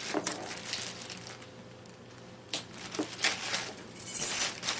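Cardboard shipping box being opened by hand: rustling, crinkling and tearing of cardboard and packing, with a quieter lull in the middle and louder rustling near the end.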